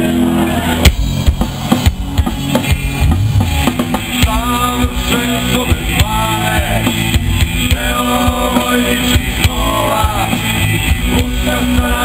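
Live rock band playing loud: electric guitars, bass guitar and a drum kit, with a male voice singing over it from about four seconds in.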